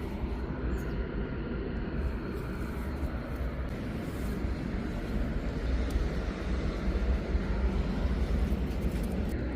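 Steady low rumble under a wide even hiss that begins abruptly, like the running noise of a vehicle.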